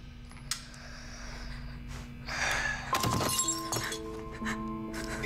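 Film score with a sharp crash about three seconds in, after which several sustained tones of music come in and hold.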